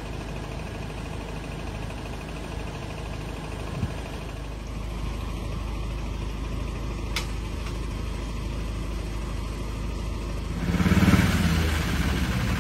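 Land Rover Discovery 2 engine running steadily at idle, with a single sharp click about seven seconds in. Near the end an engine gets louder and rougher.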